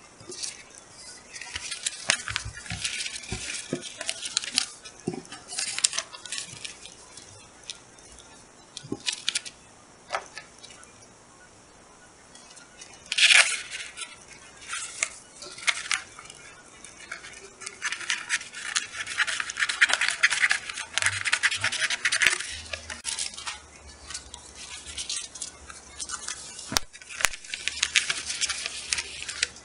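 Rustling and crinkling of a roll of clear peel-and-stick laminating film being unrolled and handled, with scattered light taps and clicks. A sharper crackle comes about thirteen seconds in, and a longer run of crinkling a few seconds later.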